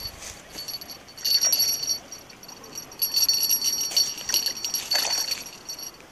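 Small fishing bells on a ledger rod jingling in bursts: once about a second in, then again for a while from about three seconds in, with a last shake around five seconds.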